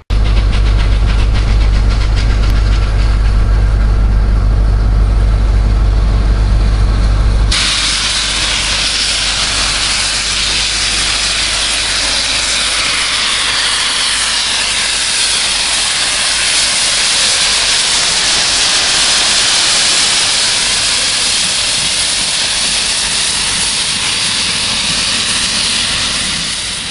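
Steam locomotive 35028 Clan Line blowing off steam: a loud steady hiss that starts suddenly about seven seconds in and runs on as the engine draws slowly into the platform. Before it, a low steady rumble.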